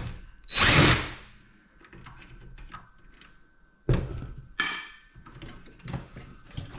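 Cordless drill-driver running in short bursts to back out screws from a computer case, with clicks and knocks of loose metal parts.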